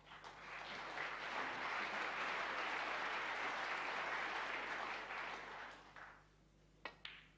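Audience applause after a pot in a snooker clearance, swelling and then dying away after about six seconds. Near the end come a couple of sharp clicks from the cue and snooker balls as the next shot is played.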